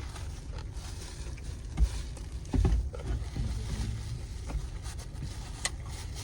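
Steady low rumble of a car's interior, with light handling clicks and two dull thumps, the louder one about two and a half seconds in.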